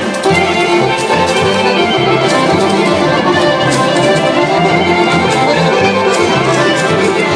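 Live band playing Macedonian folk dance music, an instrumental passage with a repeating bass beat under accordion- and fiddle-like melody lines.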